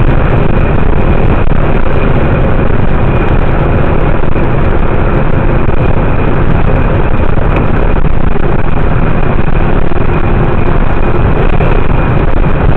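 Cab noise of a Kenworth T659 prime mover driving at highway speed on a wet road: a loud, steady mix of diesel engine drone and tyre noise.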